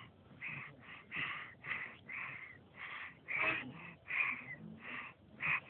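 A child with a cough breathing noisily and wheezily, in short repeated breaths about two a second.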